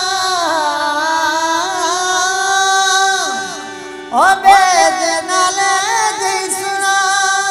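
Sindhi folk song: a long, ornamented wordless melody over a steady drone. It falls away about three seconds in and comes back a second later with a sliding upward run.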